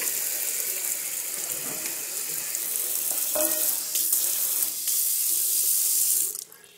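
Water running steadily from a tap into a stainless steel kitchen sink, stopping suddenly near the end.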